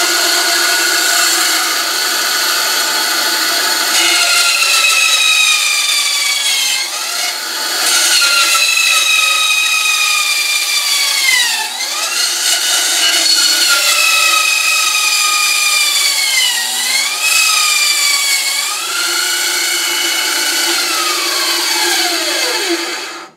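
Delta benchtop band saw running with its blade mounted upside down, teeth pointing up, so it cuts poorly. The motor gives a steady whine whose pitch sags several times as the board is pushed against the blade. Near the end the pitch falls away as the saw is switched off and coasts to a stop.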